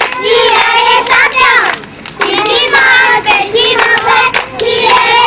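High-pitched voices singing a melodic line, with a short break about two seconds in.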